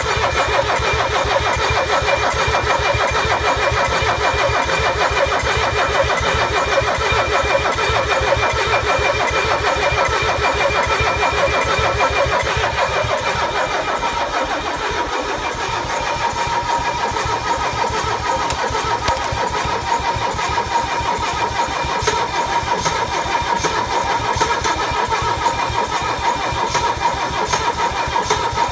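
Mercedes OM617 five-cylinder diesel being cranked over by its starter motor in one long continuous crank, with fast, even compression pulses under a steady starter whine and no sign of catching. The engine won't start even though it has new glow plugs.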